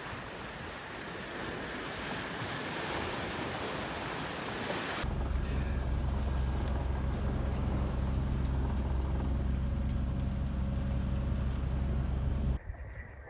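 Wind and sea hiss on the microphone. About five seconds in, a sailing yacht's engine starts to be heard running steadily under wind noise on deck, and it cuts off suddenly near the end.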